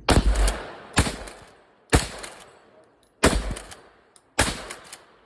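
Five gunshots, each with a short echoing tail, fired about a second apart with a slightly longer pause before the fourth.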